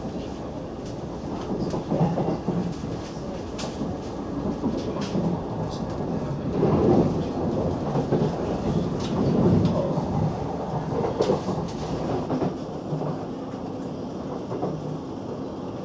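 Interior running noise of a Siemens Class 700 Desiro City electric train under way: a steady rumble of wheels on rail that swells and eases several times, with scattered sharp clicks from the track.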